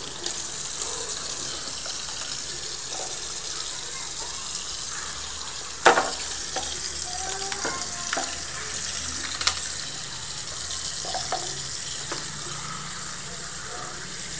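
Tap water running steadily from a faucet onto a block of ice in a ceramic wash basin, with two sharp knocks, one about six seconds in and another a few seconds later.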